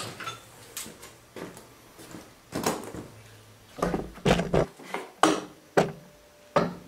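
A string of irregular knocks and clunks from tools and parts being handled, about nine short thumps spread unevenly, with a busier run in the second half.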